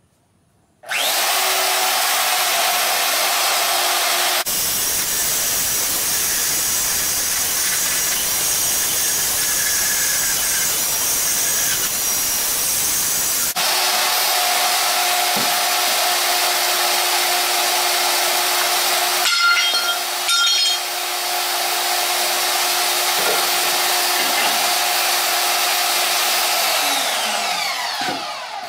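An electric power tool cutting steel stock. It starts about a second in, runs loudly and steadily, its sound changing a few times as the cut goes on, and winds down with falling pitch near the end.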